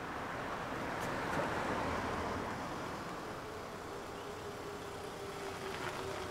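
A car drives up on the street and slows. Its engine and tyre noise swells to a peak about a second in, and a faint steady tone holds through the second half.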